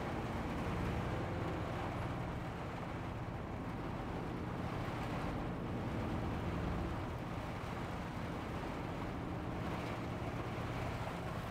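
Hino Profia heavy truck's diesel engine running steadily, heard from inside the cab, under an even hiss of heavy rain and wet road noise.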